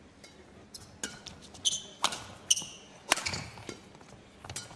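Badminton players' court shoes squeaking on the synthetic court mat, several short squeaks a few tenths of a second apart in an indoor arena.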